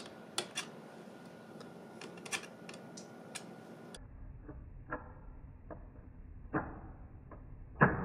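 Thin metal pick clicking and scraping against the metal retaining clips of a laptop's SO-DIMM RAM slot, a scatter of faint separate clicks. Just before the end comes a louder snap as the clips let go and the spring-loaded RAM module pops out of the slot.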